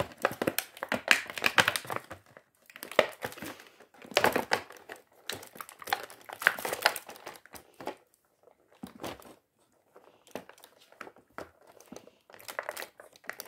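Thin clear plastic packaging crinkling in irregular bursts as small toy accessories are handled and unwrapped from their bags, busiest over the first eight seconds or so and thinning out after.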